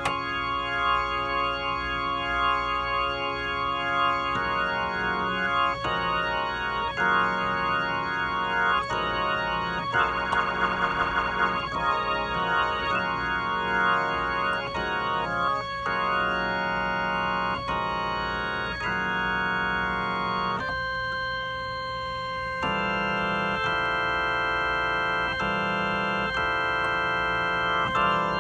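Organ chords played through a Leslie 2101 rotating speaker cabinet, sustained and changing every second or two, with a warbling stretch about ten seconds in.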